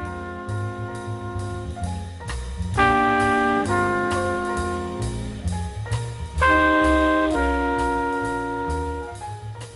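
Jazz music with brass holding chords over a bass line and a steady beat, with louder, fuller chords coming in about three seconds in and again about six and a half seconds in.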